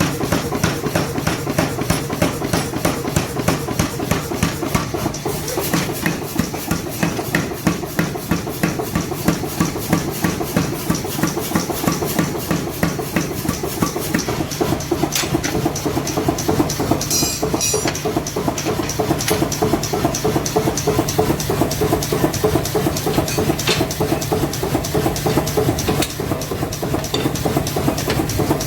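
Power hammer striking hot steel being forged, in a fast, even rhythm of about four to five blows a second over a steady motor hum.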